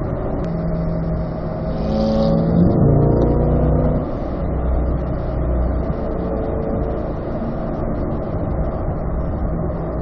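Sports car engine heard from inside the cabin, pulling under acceleration. Its pitch rises and grows louder, then drops back about two and a half seconds in before it runs steadily again.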